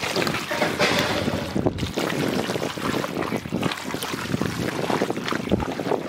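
Hands squishing and turning raw goat meat with sliced onions, spice pastes and mustard oil in a large metal pan: continuous irregular wet squelching and rustling.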